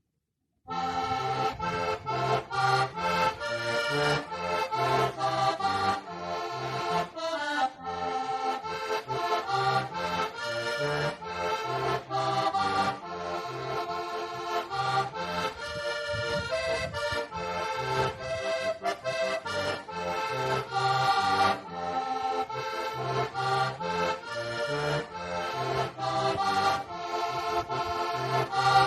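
Heligonka, a Slovak diatonic button accordion, playing a lively folk tune: a melody over a steady, regular accompaniment of bass notes and chords. It starts after a brief silence about a second in.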